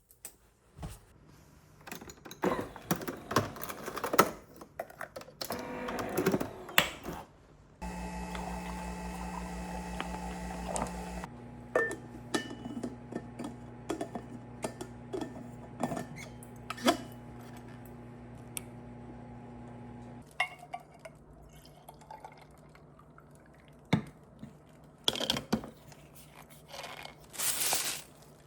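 Household handling sounds: a run of clinks, knocks and clatter like dishes and utensils being handled. A steady electric hum runs for about twelve seconds in the middle and changes pitch once, about three seconds after it starts.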